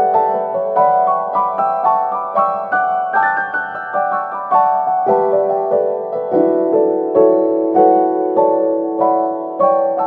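Background music: a gentle piano melody with notes struck about twice a second over sustained chords.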